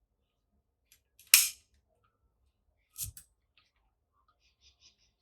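Leaf shutter of a Voigtländer Bessa I folding camera being cocked and fired at 1/50 s: a sharp click about a second in, a smaller click about three seconds in, and a few faint ticks near the end. The shutter is working at this speed.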